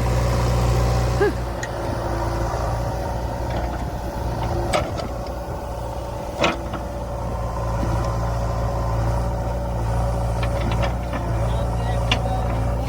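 JCB backhoe loader's diesel engine running steadily, with a couple of sharp knocks around the middle.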